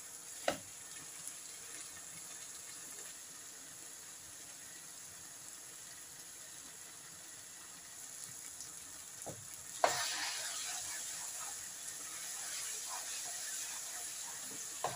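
Chicken and tomato masala sizzling in a frying pan over high heat. A spatula knocks against the pan about half a second in and again near ten seconds, and after the second knock the sizzling gets louder as the mixture is stirred.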